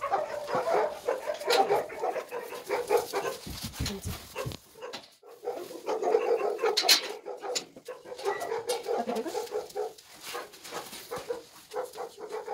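Several dogs barking at once, almost without a break, with scattered sharp knocks and rustles.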